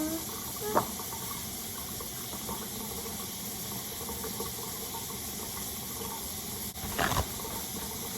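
Kitchen tap water running steadily into the sink, with a couple of short knocks, about a second in and about seven seconds in.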